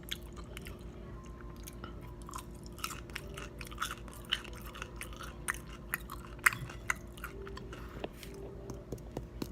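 Close-up chewing and biting of crunchy deep-fried food, with irregular crisp crunches, over a steady low electrical hum.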